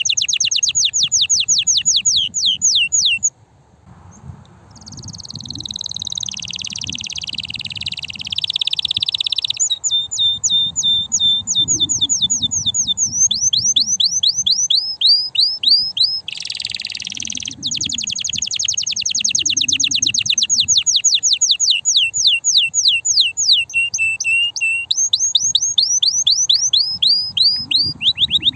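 Male canary singing in fast trills of rapidly repeated falling notes, switching from one note type to the next. The song breaks off briefly about three seconds in, then a buzzier rolling passage follows.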